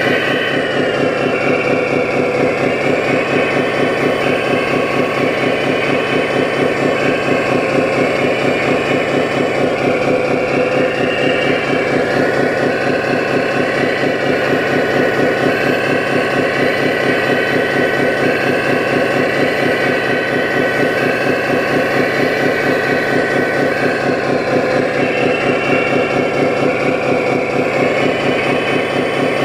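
Diesel engine sound from a 1/14-scale RC construction model's electronic sound module, running steadily with a fast, even pulse. Above it is a whine that slowly rises and falls in pitch.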